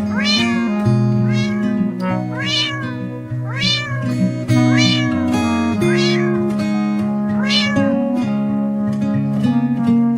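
A cat meowing over and over, six or seven times, each call rising then falling in pitch, over background music with guitar.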